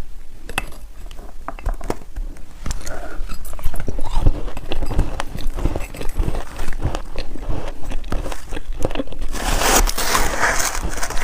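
Ice being bitten and crunched between the teeth close to the microphone: a run of irregular sharp cracks and crunches, with a denser, louder burst of crunching near the end.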